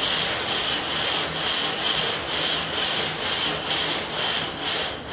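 Toy slinky stretched along a tabletop and shaken side to side by hand, its coils rattling and scraping in an even pulse about three times a second. It is swinging in its first-harmonic standing wave, one broad arc between the hand and the clamp.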